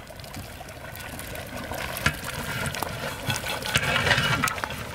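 Fresh green peas poured into a large aluminium pot of rice frying in oil and spices: many small patters and clicks over a steady sizzle, growing louder as the peas pour in.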